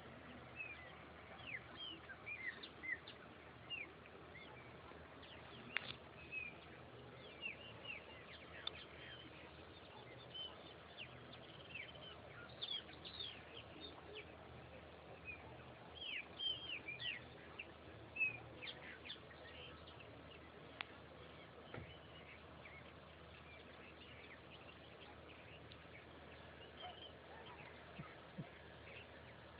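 Birds chirping: many short, quick calls falling in pitch, thickest over the first two-thirds and thinning out near the end, over a faint steady outdoor background.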